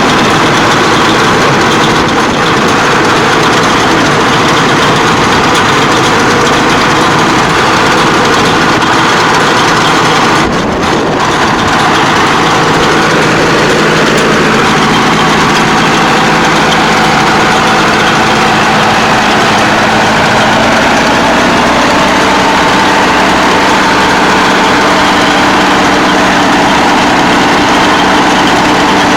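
Tractor engine running steadily while driving a Hesston 5540 round baler, a continuous loud mechanical drone whose pitch shifts slightly about halfway through and again two-thirds of the way in.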